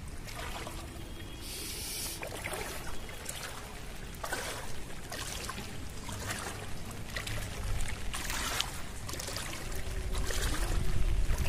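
Knee-deep floodwater sloshing and splashing in irregular swishes as someone wades through it. Wind rumbles on the microphone near the end.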